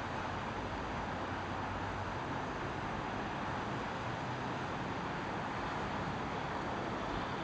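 Boeing 777 jet engines, a steady rushing noise at an even level.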